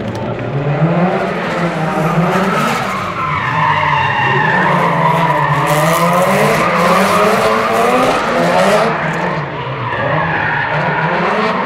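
Two Subaru drift cars drifting in tandem: engines revving up and down over screeching tyres, loudest in the middle of the run.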